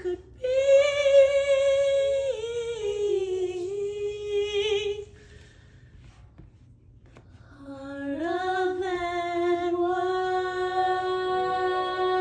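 A woman singing unaccompanied, holding long notes with vibrato that step down in pitch. After a pause of about three seconds, a woman's voice holds another long note that starts about eight seconds in, rises and then stays steady.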